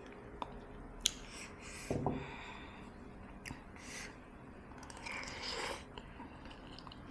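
A person eating soto ayam chicken soup: chewing broken by a few sharp clicks and a dull knock about two seconds in, with a longer noisy stretch about five seconds in.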